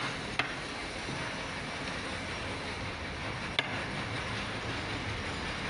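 A wooden mallet tapping a carving chisel: two sharp knocks about three seconds apart, over a steady background noise.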